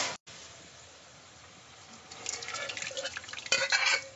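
A spoon stirring and scraping through a pan of wet, soupy kootu (cooked chayote and moong dal with water just added), with soft liquid sloshing. The strokes start about two seconds in and are loudest near the end.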